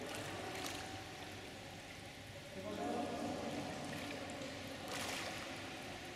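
Pool water bubbling and splashing at the surface as a scuba diver's exhaled air rises and breaks through, with short louder splashes about a second in and near the end.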